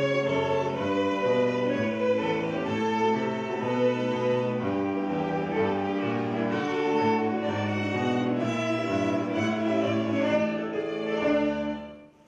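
A children's violin ensemble playing a piece together in unison and parts, sustained bowed notes; the sound fades and stops near the end.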